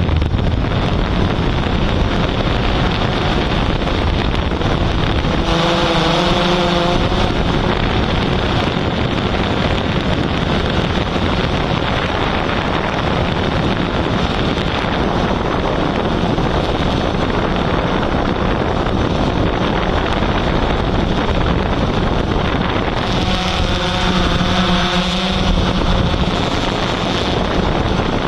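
Steady loud rushing noise from a Yuneec Typhoon H hexacopter drone in flight, its rotor wash and wind buffeting the microphone. Two brief pitched tones sound over it, about six seconds in and again near 24 seconds.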